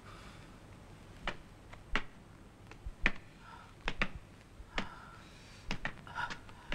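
Slow footsteps of shoes on a wooden floor: a series of sharp, separate taps, about one every half second to a second.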